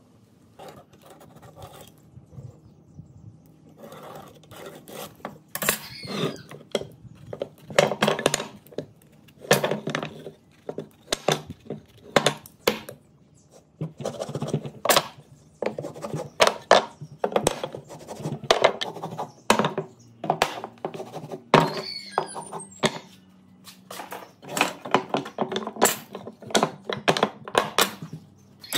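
Irregular clinks and knocks of small hard objects being handled and set down on a workbench. Twice, about six seconds in and again near twenty-two seconds, a small metal piece rattles with a ringing that rises in pitch as it settles, like a coin spinning to rest.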